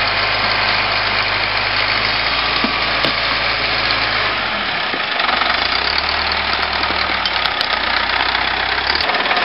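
Old articulated wheel loader's engine running as it moves over demolition debris; its note dips briefly about halfway through, then picks up again at a different pitch. A few faint clicks are heard over it.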